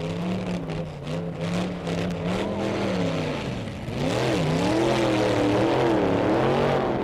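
Hot-rod street roadster drag car engine running with a steady note, then about four seconds in it gets louder as the throttle is blipped, the revs dipping and climbing in quick swings.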